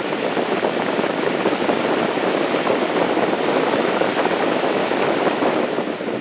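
Lasko box fan running, its airflow blowing across the microphone as a steady rushing of air.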